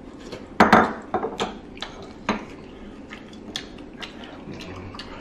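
Tongs and dishes clinking while eating cheese-stuffed rice cake, with mouth sounds from chewing. A loud cluster of clicks comes about half a second to a second in, then lighter scattered ticks and taps follow.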